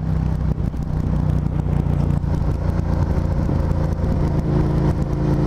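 Suzuki SV650S 645 cc V-twin motorcycle engine running steadily under way, with wind noise, and a higher engine tone joining near the end.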